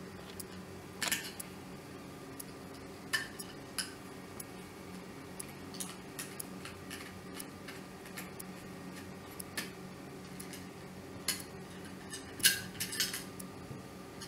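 Small metal clicks and clinks as a screwdriver works the screw of the neon lamp on a dry iron's metal sole-plate assembly. The clicks are scattered, with a cluster near the end, over a faint steady hum.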